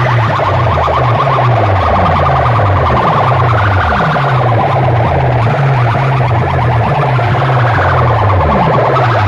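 DJ sound-box competition music blasting from big speaker stacks. A repeating stepped bass line runs under fast, siren-like rising alarm effects.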